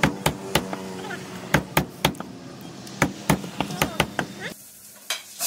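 A blade chopping on a block: about a dozen sharp, irregular strikes with a steady low hum behind them. The chopping stops about four and a half seconds in, leaving a quieter stretch with one last strike near the end.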